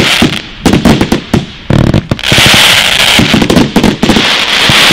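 Fireworks going off in quick succession: a rapid string of sharp, loud reports, with two longer stretches of dense hissing crackle partway through and near the end.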